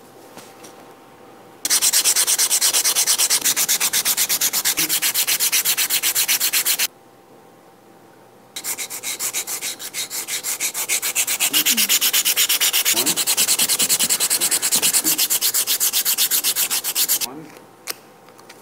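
Sandpaper rubbed rapidly back and forth along a wooden popsicle stick, thinning one edge of a toy helicopter's rotor blade. Two long runs of quick, even strokes with a pause of about two seconds between them.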